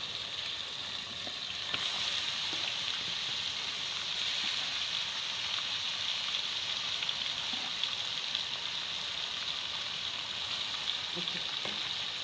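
Raw goat meat pieces and garlic, just added to a pot of frying onions, sizzling steadily in hot oil, with small crackles and pops.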